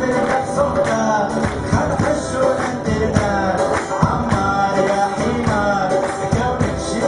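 Live Tunisian song: a male voice singing over guitar and a steady beat of hand percussion.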